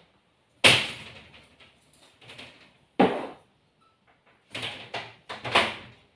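Balcony door being closed: a sharp bang about half a second in, another about three seconds in, then several quicker knocks and bangs near the end.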